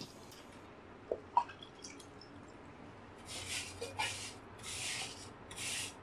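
A couple of faint clicks, then from about three seconds in a run of rhythmic scrubbing strokes, roughly one every two-thirds of a second, as a sponge is rubbed over the fins of a window air conditioner's rear heat exchanger coil to clear off the caked-on crud.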